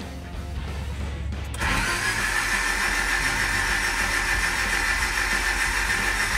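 Starter motor cranking a Honda H22A engine steadily without it catching: the spark plugs and fuel pump are pulled, so it is only spun over to prime the oil. The cranking begins about a second and a half in, after a faint low hum.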